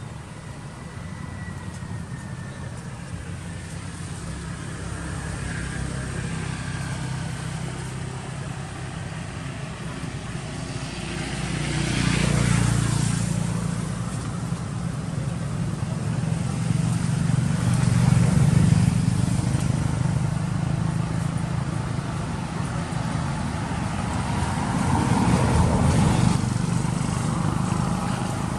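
Engines of passing motor vehicles, a steady low hum that swells and fades about three times as vehicles go by.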